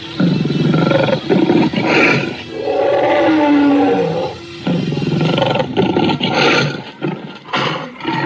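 Recorded dinosaur roars and growls played at a dinosaur-model exhibit: rough, grainy growling with one long roar falling in pitch about three seconds in, then harsher noisy roars near the end.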